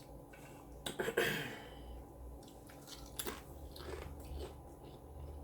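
A person biting into a taco and chewing, with the loudest bite about a second in and further sharp bites and chews later.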